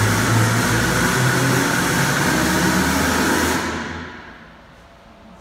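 Steady machine noise, a low hum under a rushing hiss, that dies away about four seconds in.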